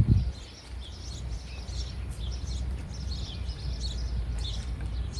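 Birds chirping, many short scattered calls, over a steady low rumble of background noise.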